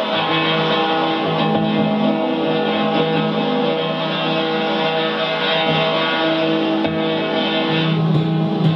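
Dense droning music of many held tones, made from the scratching of a drawing tip on paper fed by cable through effects pedals. Near the end the higher tones thin out and a low tone swells.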